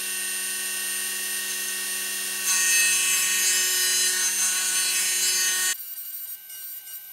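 Dremel rotary tool running at high speed, its 1.5 mm end mill cutting a metal car key blank: a steady motor whine under a harsh grinding hiss that gets louder about two and a half seconds in. Near the end the whine and grinding cut off abruptly, leaving only faint high tones.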